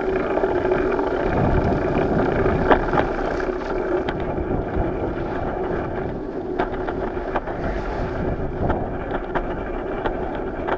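Riding noise of a moving bicycle heard through a camera mounted on the bike: wind on the microphone and tyres on the concrete road, with a steady hum and scattered small clicks and rattles.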